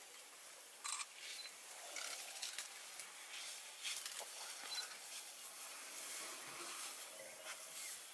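Camera shutter clicks and a few short, high focus beeps, over faint rustling.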